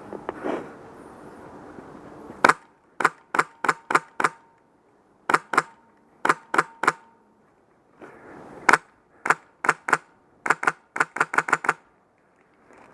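Airsoft rifle, HPA-powered (PolarStar engine), firing single shots as sharp cracks in quick strings of two to six, ending with a fast string of about nine.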